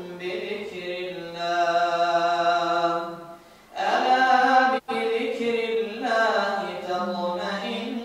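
An imam's voice reciting the Quran in a slow, melodic chant. He holds long, sustained notes and pauses briefly for breath about three and a half seconds in.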